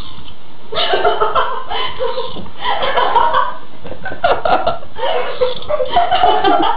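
A person laughing in repeated bursts.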